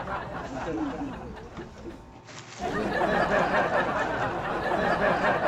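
A man's voice, laughing and talking, broken off briefly a little after two seconds in.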